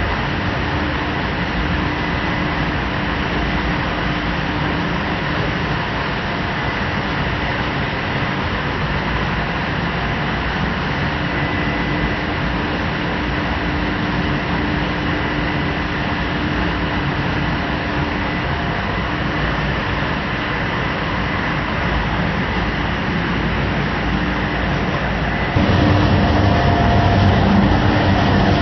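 Paper slitting machine with a shaftless unwinder running at speed: a steady, dense mechanical whir with a constant hum. Near the end the sound jumps louder and heavier, next to a running piston air compressor.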